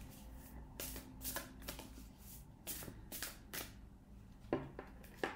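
A deck of oracle cards being shuffled by hand: a string of faint, irregular card flicks and taps.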